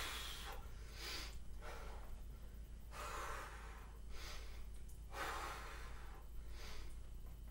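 A woman breathing hard while doing leg lifts: heavy, audible breaths in and out, about one every second or so.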